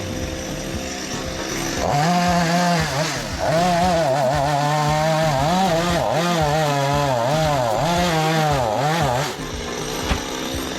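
Chainsaw cutting into a coconut palm trunk. Its engine pitch keeps dipping and climbing as it bogs under load and picks up again. It runs quieter for about the first two seconds, then louder.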